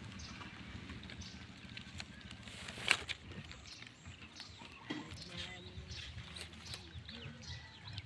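Quiet outdoor background with one sharp click about three seconds in, a few softer ticks, and faint short calls later on.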